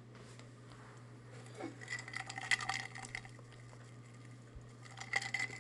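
Faint dabbing and scraping of a foam dauber working wax down into the holes of a bark-textured craft piece, with light clicks and short squeaky rubs, busiest about two seconds in and again near the end.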